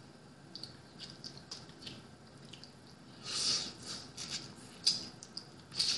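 Close-up eating sounds from picking steamed blue crab by hand: small clicks and crackles of shell and meat being pulled apart, then a short sucking slurp about three seconds in as meat is eaten off the fingers, followed by a few sharp mouth clicks.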